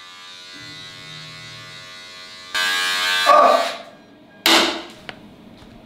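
Electric razor buzzing in a small tiled bathroom, faint and steady at first. At about two and a half seconds it turns loud and rasping for about a second as the blades work. A sharp, loud burst comes about four and a half seconds in.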